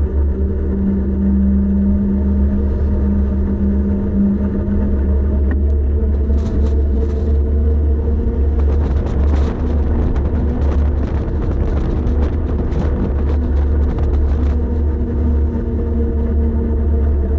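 Steady low rumble of wind on the microphone and road noise during a bicycle descent. Through the middle stretch there is a spell of quick clicks and rattles.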